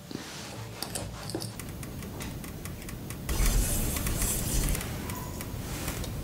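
A run of light clicks and taps, then from about three seconds in a louder scratchy brushing as a silicone brush spreads oil over a Lamex nonstick frying pan.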